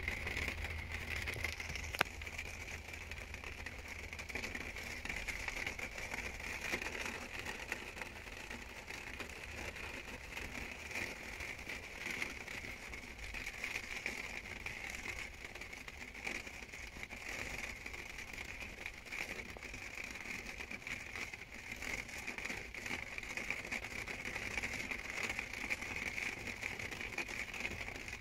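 Rain pattering on a small camper's window, heard from inside: a steady, fine crackle of drops, with one sharp click about two seconds in.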